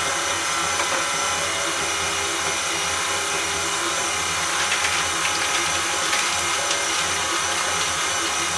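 KitchenAid Classic tilt-head stand mixer running steadily at one speed, its flat beater turning through a stiff quark dough in the steel bowl. It is an even motor whine with a low hum.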